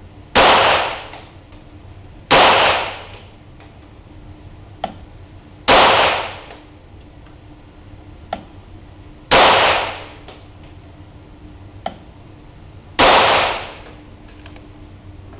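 Five shots from a Feinwerkbau AW93 .22 LR competition pistol held in a Ransom Rest, firing CCI Standard standard-velocity ammunition as barrel-prepping fouling shots. The shots come two to four seconds apart, each a sharp crack with a short echoing tail, with lighter clicks between some of them.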